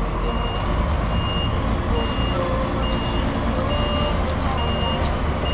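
Truck reversing alarm beeping a single high tone about once a second, over the low rumble of the running diesel engine.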